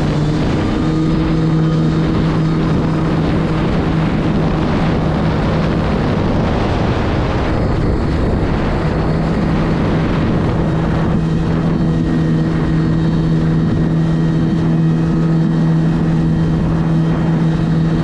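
Jet ski engine running under way, a steady drone whose note steps up slightly about half a second in. A rushing noise of wind and water over the hull runs with it and nearly drowns the engine's tone in the middle stretch.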